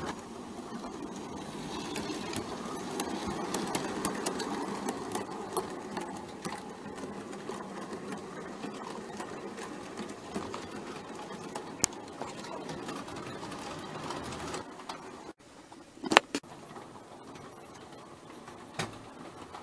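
ACE Trains O gauge three-rail model train running, heard from on board: the small electric motor whirring and the wheels rattling and clicking over the track joints and points. It is louder in the first few seconds, drops out briefly near the end, then gives a sharp clatter.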